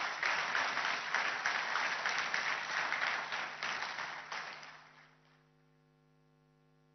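Audience applauding, dying away about five seconds in and leaving a faint steady electrical hum.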